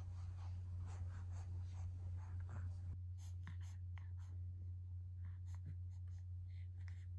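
Quiet room with a steady low hum and faint rustling and soft clicks scattered through it.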